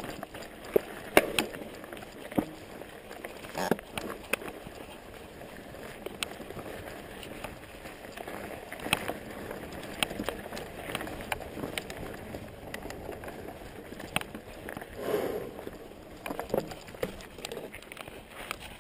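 Specialized Stumpjumper mountain bike riding down a dirt singletrack: steady tyre and rolling noise from the trail, broken by frequent sharp knocks and rattles as the bike goes over bumps.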